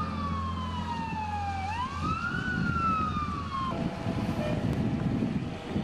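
Emergency vehicle siren wailing: its pitch slides slowly down, swoops back up about two seconds in, then falls again until it cuts off abruptly a little before four seconds in. A low rumble of traffic and engines runs underneath and carries on after the siren stops.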